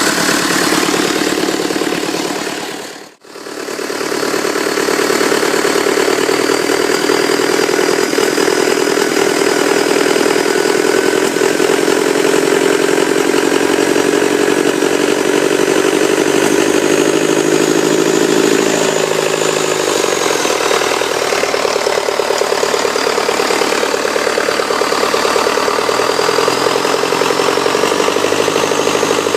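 Rebuilt Cummins 4.5-litre four-cylinder diesel engine running steadily; its sound drops out briefly about three seconds in, and its pitch steps down about two-thirds of the way through as the engine speed falls. A wavering high whine runs above the engine note.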